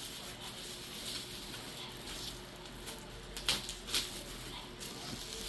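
Packaging being handled during an unboxing: faint rustling of boxes and wrapping, with two short sharp clicks about three and a half and four seconds in.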